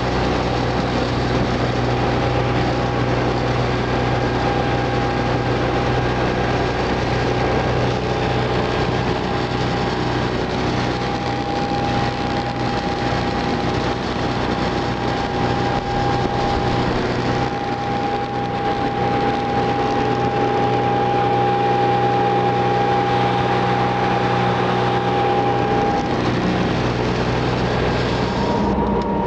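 An engine running steadily, a constant hum with a few held tones over it.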